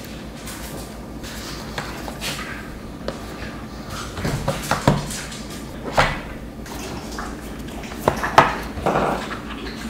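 White cardboard product boxes being handled and opened, with paper rustling and sliding. From about four seconds in come several sharp taps and knocks as the box parts and tray are handled.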